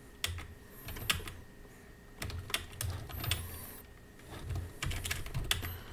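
Computer keyboard being typed on: short runs of key clicks with pauses between, as brief chat messages are typed and sent.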